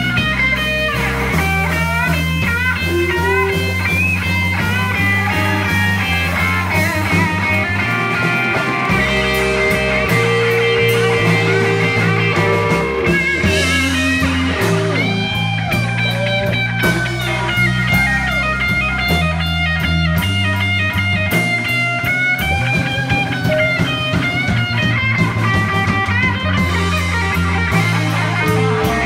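Live blues band playing a slow blues: an electric guitar takes the lead with bent, sliding notes over a steady bass line.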